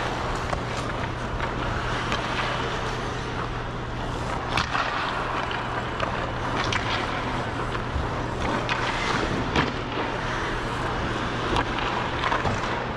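Ice skate blades gliding and scraping on rink ice, with a steady low hum underneath.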